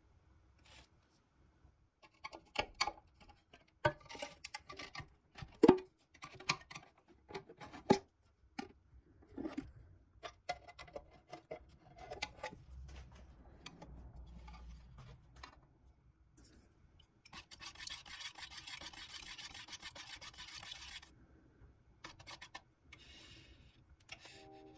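Hands working small parts on a workbench: a run of sharp taps, clicks and knocks, then about three seconds of steady rubbing.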